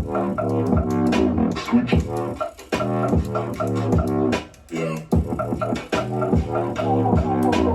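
Background electronic bass music: heavy synth bass notes on a steady beat with sharp drum hits, briefly dropping out twice.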